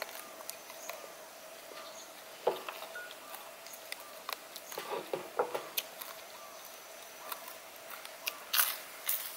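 Close-miked chewing and crunching of crispy fried food, with scattered short crackles and clicks, the loudest bite near the end, over a faint steady tone.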